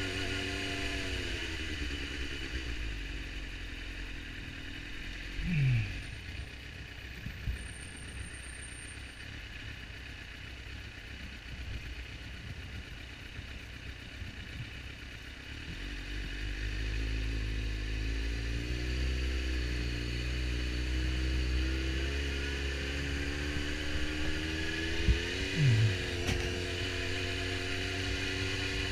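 Suzuki GSX-R750 inline-four engine, heard from the rider's helmet: the revs drop as the bike slows, it runs low and quiet in traffic, and about halfway through it pulls away with rising revs and keeps running with changing throttle. Two short, loud falling chirps cut in, one early on and one near the end.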